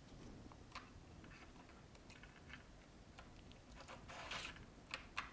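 Faint clicks and light handling noise from an iPhone's metal housing and logic board turned over in gloved hands. There is a short rustle about four seconds in and two sharp clicks near the end.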